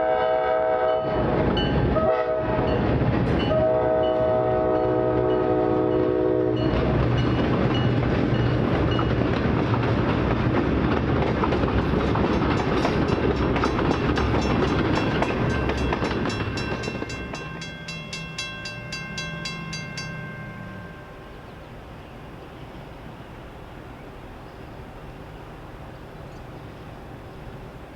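Diesel locomotive air horn sounding several blasts, the last held for about three seconds, as an EMD FP9-led passenger train passes. Then heavy diesel engine rumble and rushing wheel noise, with rapid clicking from the wheels over the rails, fading away after about seventeen seconds.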